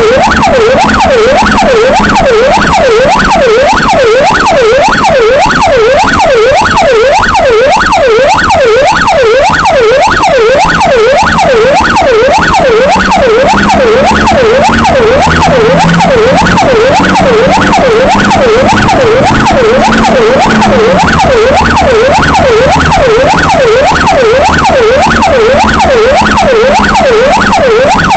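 Emergency vehicle's electronic siren sounding continuously on an emergency call, loud, in a fast yelp that sweeps up and down in pitch about two to three times a second.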